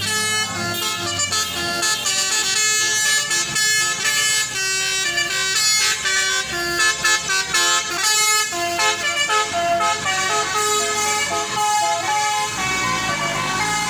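Tour bus's basuri musical air horn playing a quick tune, one stepped note after another, with a low engine rumble fading out early and returning near the end.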